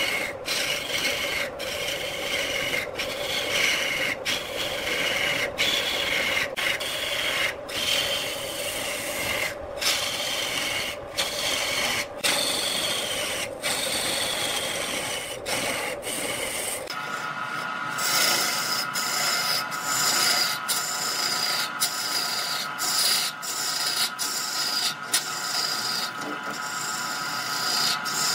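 Wood lathe turning a large wood blank while a hand-held gouge cuts into it: a continuous rasping scrape of the tool shaving the spinning wood, broken by many short gaps. About halfway through the low rumble drops away and a steady high-pitched hum carries on under the cutting.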